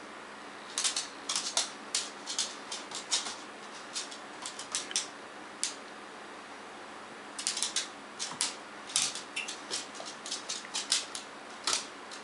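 Boston terrier's toenails clicking on a hard wood-laminate floor as it steps and shifts about: runs of quick, sharp, irregular ticks with a pause of a second or two in the middle.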